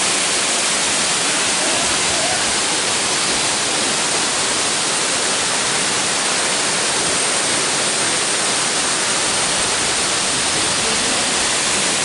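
Waterfall pouring down a rock face into a plunge pool: a steady, even rush of falling water that does not change in level.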